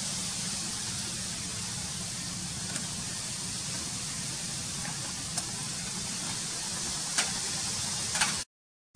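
Steady hissing outdoor background noise with a low hum underneath and a few sharp clicks in the last few seconds; the sound cuts out completely just before the end.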